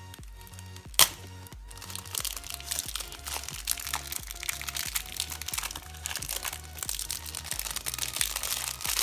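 Plastic shrink wrap being split and peeled off a speed cube: one sharp crack about a second in, then continuous crinkling and crackling of the plastic, over background music.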